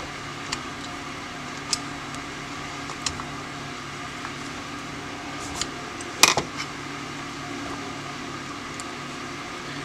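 Small metallic clicks and ticks from a screwdriver and brass metering jets being seated in an aluminium Edelbrock 1406 carburetor body, with one sharper metal clack about six seconds in, over a steady background hum.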